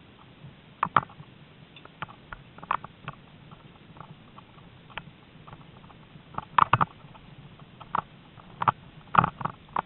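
Irregular clicks and knocks from a dog-drawn mushing rig and its gear jolting over a rough grass trail, with quick clusters of rattles about two-thirds of the way in and near the end.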